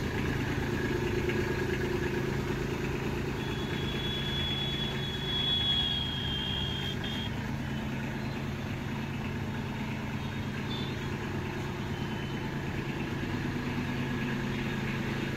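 Kubota B2741S compact tractor's three-cylinder diesel engine running steadily at low revs as the tractor creeps forward.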